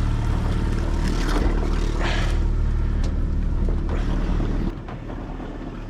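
Boat motor running steadily at trolling speed, a low even drone of one unchanging pitch. It drops suddenly in level near the end, with a brief rustle about two seconds in.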